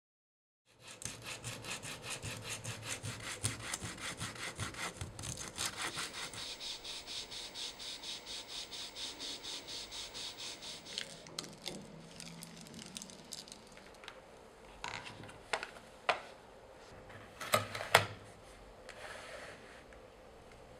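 Abrasive strip scraping back and forth over a rubber cable jacket in rapid, even strokes of several a second for about ten seconds, roughening it for a heat-shrink repair sleeve. It gives way to softer wiping, then a few sharp clicks and knocks as the steel closure channel is fitted onto the wrapped sleeve.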